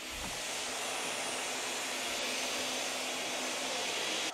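Countertop blender motor running steadily at high speed, whipping a thick protein ice cream base to aerate and emulsify it. It builds slightly in the first second, then holds even.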